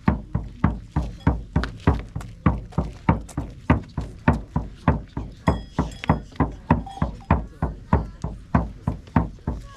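Steady, even drumbeat at about three strokes a second, each stroke with a deep thud.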